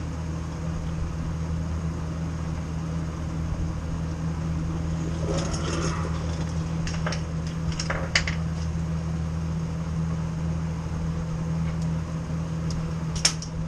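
A steady low machine hum runs throughout, with a few sharp metallic clinks of hand tools on drive shaft bolts, two of them louder, about eight and thirteen seconds in.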